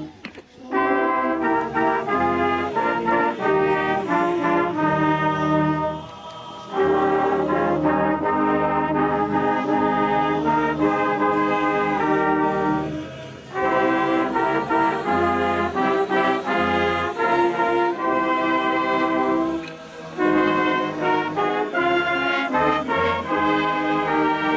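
Brass band with trumpets and trombones playing a piece in phrases of six or seven seconds, each separated by a brief pause.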